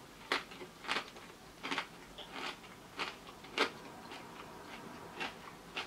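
Extra-thick potato crisps in a crisp sandwich crunching as they are chewed: sharp, irregular crunches about every half second, thinning out after about four seconds.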